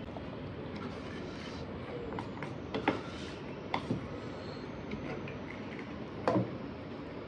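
A handful of sharp clicks and taps as spoons and crisp puri shells are handled over stainless steel bowls while the puris are filled, the loudest near the end, over a steady background hiss.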